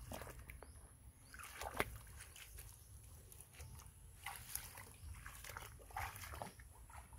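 Feet wading and a bamboo frame dragged through shallow water and mud among water hyacinth: irregular splashes and sloshing, with a few louder splashes about a second and a half, four and a half, and six seconds in.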